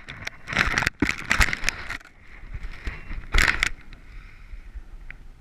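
Strong wind gusting across the microphone in uneven bursts of rushing noise, three loud gusts in the first four seconds, then easing to a lower steady hiss.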